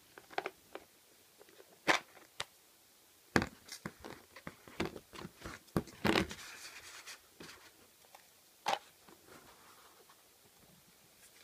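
Hard plastic clicks, taps and clatters as a toy plastic bento box is handled: its lid clips unsnapped, the lid lifted off, and the box set down on a table. A short scrape of plastic follows one of the louder clicks about six seconds in.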